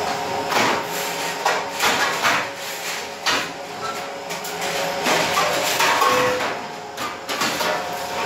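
Stainless steel compartment food trays clattering in plastic dishwasher racks as the racks are handled and shifted: a string of irregular knocks and metallic rattles, over a steady hum.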